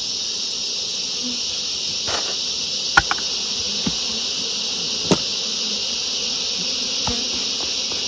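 Steady, high-pitched insect drone, with a few sharp knocks from plastic hive parts being handled, the loudest about three and five seconds in.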